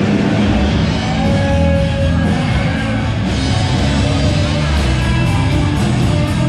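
A live band playing rock music.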